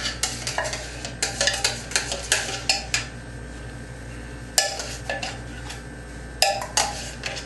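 An emptied tin can of coconut milk tapping and clinking against the rim of a stainless steel pot as the last of the milk is knocked out. The clinks come in irregular clusters, with pauses near the middle.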